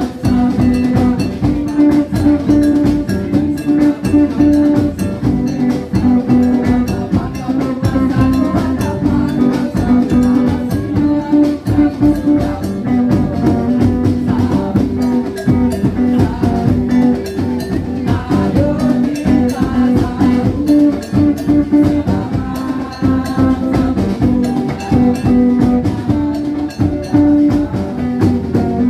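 Patrol sahur music: a steady, driving beat of drums and percussion under a repeating pitched melody.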